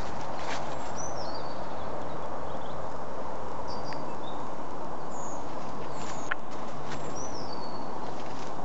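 Footsteps crunching on dry fallen leaves, with a few sharp snaps, while a small bird gives short falling chirps about five times over a steady outdoor hiss.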